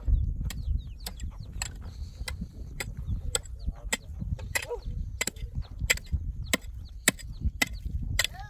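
Rhythmic mechanical clicking, about two sharp clicks a second, over a low rumble.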